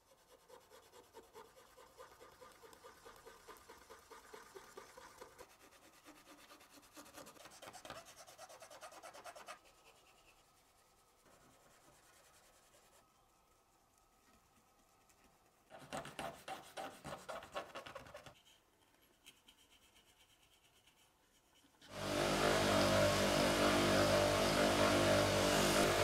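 A cotton swab scrubs the small window rims of a vintage lighter body in quick rubbing strokes, in two spells. About 22 seconds in, an electric buffing wheel comes on loud and runs steadily, polishing the lighter's metal body.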